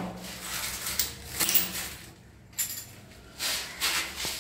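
Chrome and brass wall-mixer fittings being handled: a few short, irregular clinks and rustles.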